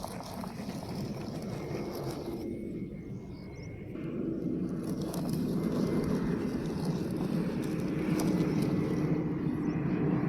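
Small electric motor and gears of a toy truck running, with a steady whirring drone that grows louder about four seconds in.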